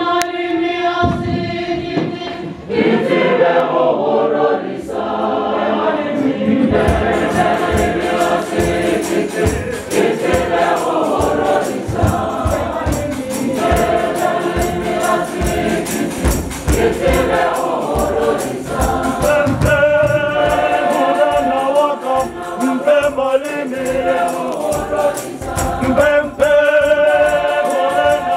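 Church congregation and choir singing a Setswana hymn together. From about seven seconds in, a steady rhythmic beat keeps time under the voices.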